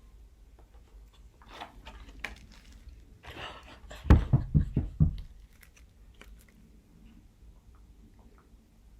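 Album packaging being handled and unpacked: scattered rustling and crinkling of paper and card, with a quick run of about five dull, heavy knocks a little after four seconds in.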